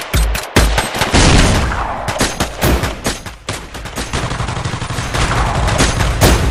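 Gunfire sound effects: a rapid, irregular volley of many shots, like a fusillade or machine-gun fire, with a low rumble underneath from about four seconds in.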